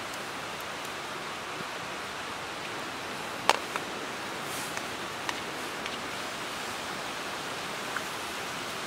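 A steady, even hiss, with a few light clicks and taps as a camp frying pan and utensils are handled. The sharpest click comes about three and a half seconds in.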